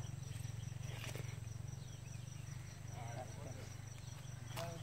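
Faint field ambience: insects trilling steadily at a high pitch over a low steady hum, with a faint click about a second in and faint distant voices near the end.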